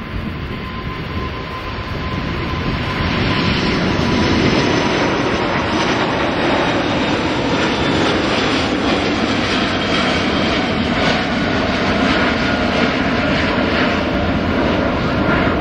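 Airbus A380's four jet engines at takeoff thrust as the airliner lifts off and climbs: a loud, steady jet rumble that swells about three seconds in and then holds.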